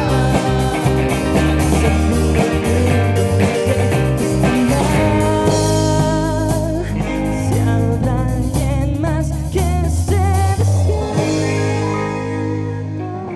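A live rock band playing: electric guitars, bass guitar, drum kit and keyboards under a sung lead vocal. About eleven seconds in, the drums and bass stop, leaving held guitar and keyboard chords ringing.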